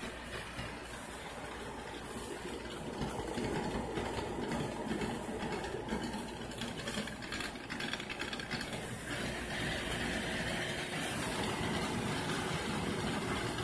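Model electric train running on sectional track: the locomotive's small motor hums and the wheels roll over the rails as the cars pass close by, a steady sound.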